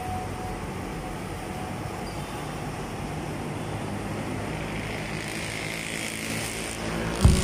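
Steady road traffic noise, with a vehicle passing that swells in and out about two-thirds of the way through, and one sharp thump near the end.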